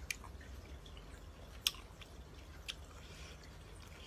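A person chewing mango salad, with three short sharp clicks of mouth and food sounds over a low steady hum.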